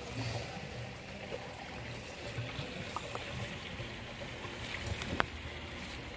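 Water running and trickling steadily in a backyard fish-tank system, with one sharp click about five seconds in.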